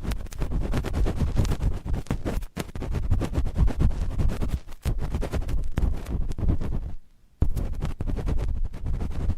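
Cotton swabs scratching and rubbing directly on a microphone in quick, continuous strokes, the rubbing loud and rumbly in the mic. It stops briefly about seven seconds in, then resumes.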